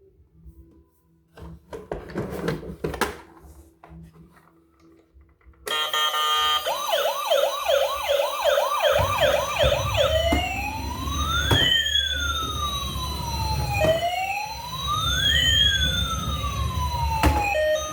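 Toy emergency vehicle's electronic siren, starting about six seconds in after some faint plastic handling clicks: a quick yelp repeating about three times a second, then switching to a slow rise-and-fall wail, over a low rumble.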